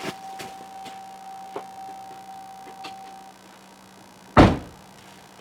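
A steady tone that stops about three seconds in, then a single loud thump of a Chevrolet Suburban's door being shut.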